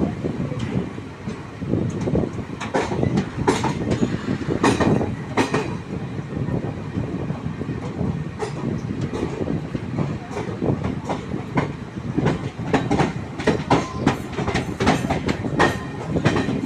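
A train running past, its wheels clattering over the rail joints in irregular bursts of sharp clacks over a steady rumble.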